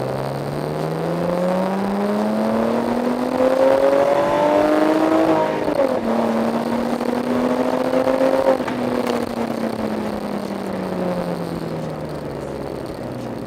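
Lexus IS300's inline-six engine, with its cats in place and a MagnaFlow muffler on dual tips, heard from inside the cabin under acceleration. The exhaust note climbs steadily for about five seconds. It drops sharply at a gear change about six seconds in, pulls briefly in the next gear, then falls away slowly as the driver eases off.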